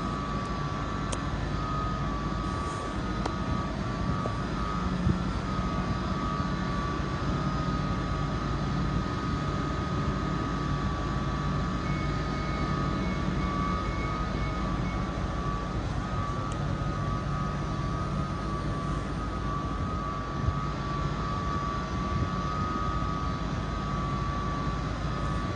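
Class 755 train standing at the platform, its engines and equipment running with a steady hum and a steady high whine over it.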